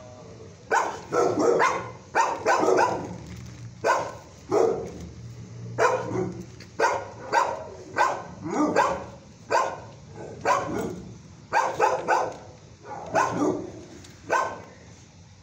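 Dog barking over and over in a shelter kennel, short barks that fall in pitch, coming singly or in quick runs of two or three about every second.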